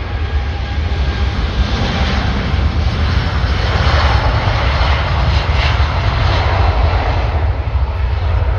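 Jet airliner's engines roaring as it passes, a deep rumble with a broad rush that swells to its loudest about four to six seconds in.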